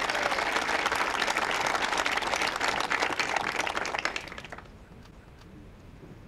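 Applause: dense clapping that fades away about four seconds in, leaving quiet outdoor background.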